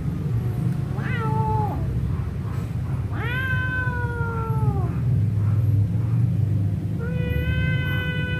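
Domestic cat yowling in a standoff with another cat: long, drawn-out yowls, each rising and then sliding slowly down in pitch, the longest lasting almost two seconds. The sound of a territorial warning before a fight.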